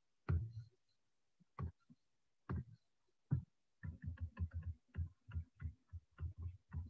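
Pen stylus tapping on a drawing tablet while a word is handwritten: a few separate light taps, then from about four seconds in a quick run of taps, about five a second.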